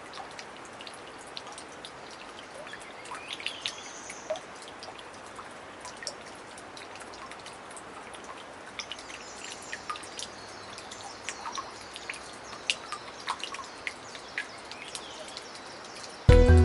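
Water drops falling after rain, scattered irregular ticks of drips from wet leaves over a steady wash of outdoor noise, with a few short bird chirps. Music starts abruptly near the end, louder than everything before it.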